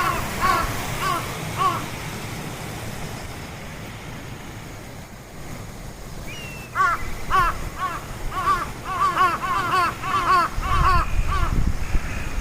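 Birds giving rapid series of short, harsh calls, a few per second. The calls stop for a few seconds and then start again more densely. A low rumble comes in near the end.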